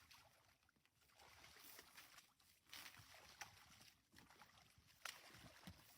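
Near silence: faint outdoor hiss with a few soft clicks and knocks.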